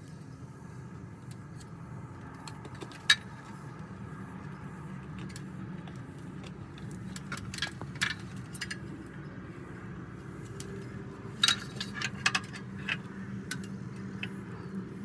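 Scattered sharp clicks, taps and clinks from the plastic sections of an exterior LED light track being handled and fitted into place, the loudest about three seconds in and a quick cluster near twelve seconds. Under them runs a steady low hum.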